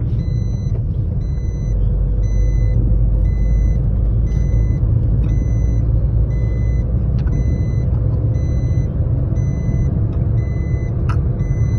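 Steady low road and engine rumble inside a moving car's cabin. A short, high electronic beep repeats at an even pace, a little more than once a second.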